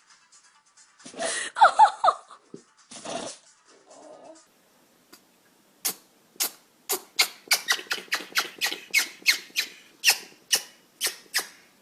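An animal sneezing: a sneeze with high squeaky sounds about a second in, another sneeze, then from about six seconds a fast run of short sharp sneezes, about three a second.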